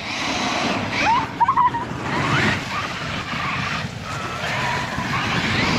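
Traxxas X-Maxx 8S RC monster truck's brushless electric motor and drivetrain whining over a constant rush of tyres on snow, the whine rising in pitch several times as the truck accelerates.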